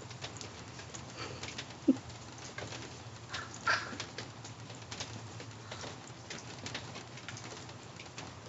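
Rain dripping and pattering: scattered drips and drops ticking irregularly over a steady low hum, with a short low sound about two seconds in and a louder brief sound near four seconds.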